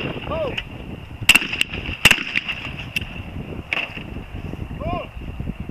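Sharp clicks and clacks from a Darne R16 sliding-breech shotgun being handled and loaded, the two loudest about one and two seconds in.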